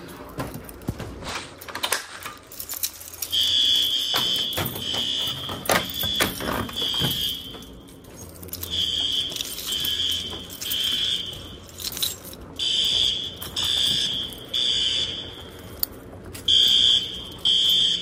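Fire alarm horns on a Notifier system sounding the evacuation signal in the temporal-3 pattern: a loud high-pitched beeping in sets of three beeps with a short pause between sets. The horns come on about three seconds in, after a few clicks and knocks, as the system goes into alarm from a pulled manual station.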